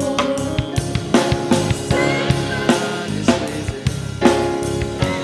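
Live worship band playing an instrumental passage between sung lines: a drum kit with kick, snare and cymbals keeping a steady beat under sustained keyboard and guitar chords.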